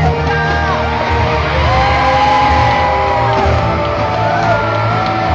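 Loud music with a sung melody over a heavy, steady bass.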